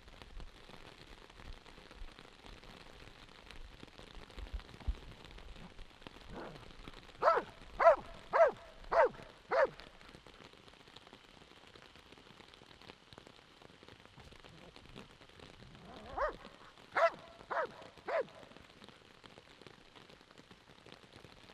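A dog barking at a protection-work decoy standing still in front of it, guarding him: a run of about six sharp barks, a pause of several seconds, then four more.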